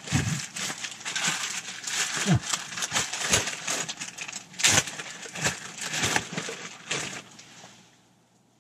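Rummaging through a pack: rustling with irregular clicks and knocks of small items being handled, dying away shortly before the end.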